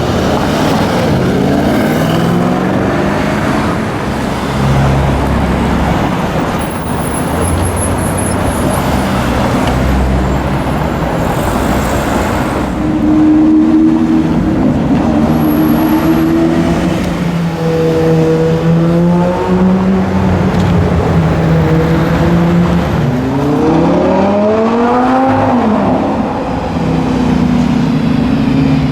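Sports car engines in street traffic, with one car revving hard about 23 seconds in, its engine pitch climbing quickly and then dropping away.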